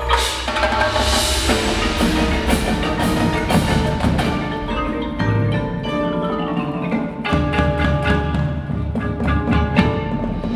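Indoor percussion ensemble playing: a line of marching snare and tenor drums striking fast rhythms over a front ensemble of marimbas and other mallet percussion with low bass notes, opening with a bright crash.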